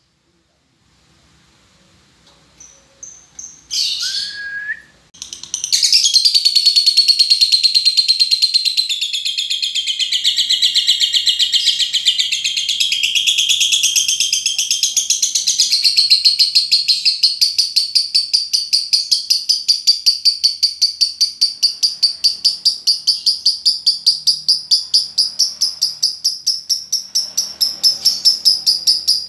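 Lovebird ngekek: a few short calls, then from about six seconds in a long, unbroken, high chattering trill with rapid even pulses, held for over twenty seconds. This long-duration ngekek ("ngekek panjang") is the trill that such recordings are played to coax out of other lovebirds.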